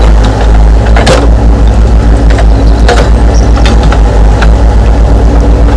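RC excavators' simulated diesel engine sound running steadily, an even rapid low throb. A couple of sharp clicks of gravel come about a second in and again about three seconds in.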